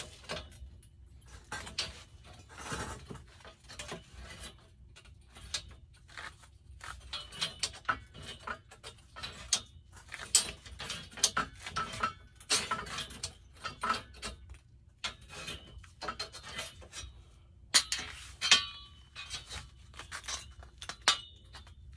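Notched steel strip being flexed and handled, its segments clinking and rattling in many irregular metallic clicks that grow busier partway through.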